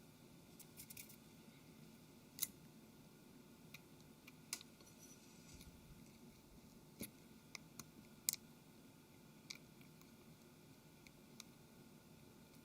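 Faint, scattered small clicks and taps of tiny phone parts being handled and seated into a smartphone's casing, as the headphone jack and earpiece are fitted back into a Galaxy Note 3. About ten clicks in all, the clearest about two and a half and eight seconds in.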